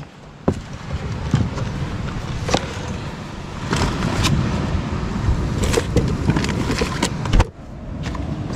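Handling noise of a phone being moved about: scattered clicks and knocks over a steady low rumble and rush, with a brief sudden drop near the end.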